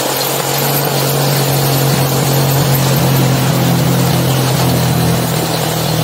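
Small motorcycle engine of a sidecar tricycle running steadily on the move, a constant low hum, with wind rushing over the microphone.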